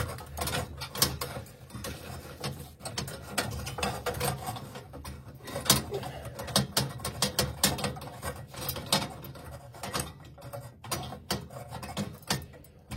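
Irregular metallic clicks, knocks and scrapes as a gas boiler's pilot and burner assembly is worked loose and pulled out by hand.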